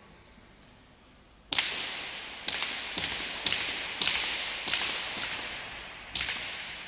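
Hand-pelota rally: the leather ball is struck bare-handed and cracks against the frontón's walls and floor. About eight sharp smacks come at uneven intervals starting about a second and a half in, each ringing out in the hall's long echo.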